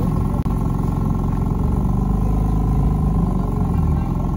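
BMW M4 coupé's engine running at idle through its quad exhausts, the engine speed swelling gently up and back down twice.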